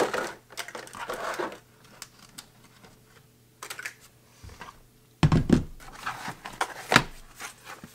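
Clear plastic blister packaging being handled, with light crackles and scattered clicks. Heavier knocks come about five seconds in and a sharp click near seven seconds, as plastic-bodied cordless tools are set down on the workbench mat.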